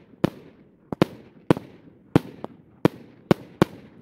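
Consumer firework cake firing shot after shot: about seven sharp bangs, roughly every half second, each trailing off in an echo.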